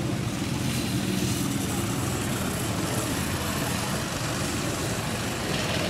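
Go-kart engines running out on the track, a steady engine drone under a continuous noisy rush.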